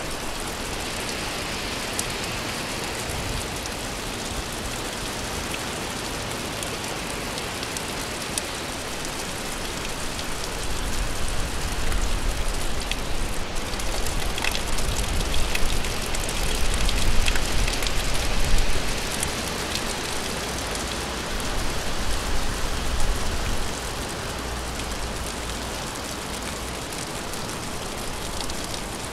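Gentle rain falling: a steady hiss with scattered sharper drop ticks. A deep low rumble swells up about a third of the way in and fades away again before the end.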